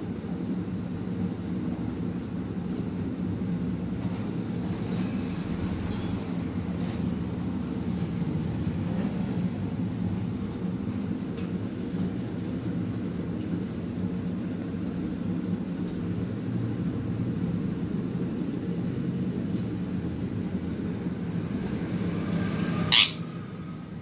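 A steady low mechanical hum, with one short sharp sound near the end.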